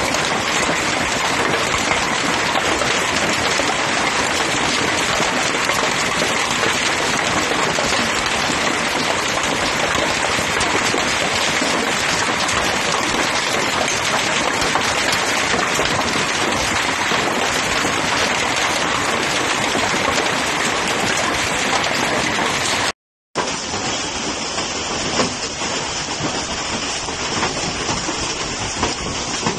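Hail mixed with heavy rain pelting down: a dense, steady clatter of many small impacts over a loud hiss. After a brief dropout near the end, a slightly quieter patter of the same downpour continues.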